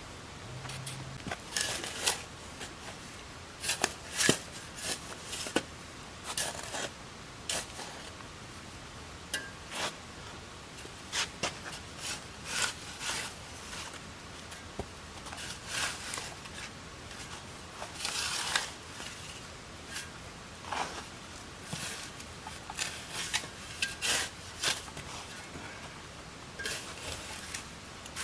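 Irregular short scraping strokes of a metal tool working loose grit, roughly one a second, with one longer scrape past the middle.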